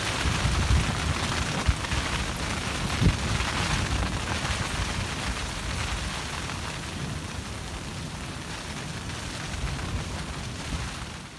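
Steady hiss of rain with wind gusting on the microphone, over a wood campfire crackling. The low buffeting is strongest in the first few seconds, and the whole sound eases off gradually toward the end.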